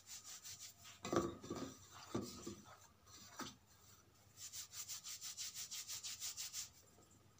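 Hands rubbing oil into flour in a steel bowl: a faint, dry rubbing of palms and fingers through the flour, rubbing in the oil so it coats the flour for a firm dough. A few separate strokes come first, then a quick run of even strokes, several a second, near the end.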